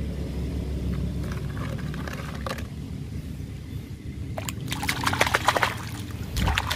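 Water in a tub running and trickling as a muddy plastic toy animal is rinsed in it, with a steady low rush; from about four and a half seconds in, louder irregular splashing and dripping.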